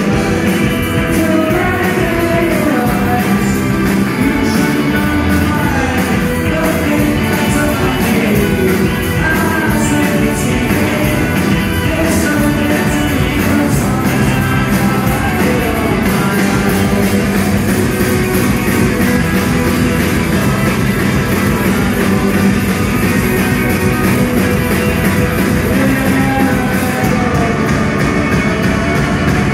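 Rock band playing live: electric guitars and drums with a sung lead vocal, loud and steady.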